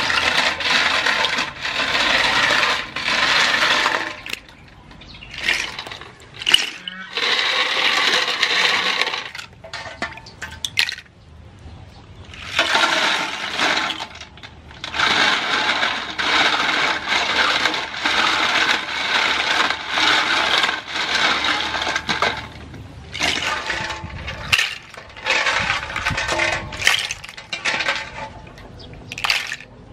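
Sea snail shells clattering and grating against one another and the metal bowl as they are rubbed and stirred by hand in salted water, with some splashing. It comes in stretches of a few seconds with short pauses between.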